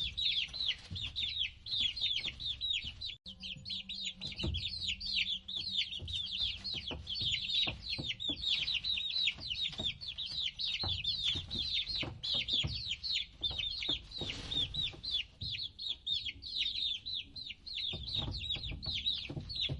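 A flock of young chicks peeping nonstop: many short, high calls that each fall in pitch, overlapping one another.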